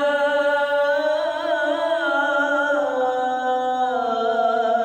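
A man's voice chanting the adhan (Islamic call to prayer), holding one long ornamented note on 'lā' of 'ashhadu an lā ilāha illallāh'. The note wavers and steps down in pitch about three seconds in. The man has a cold and flu.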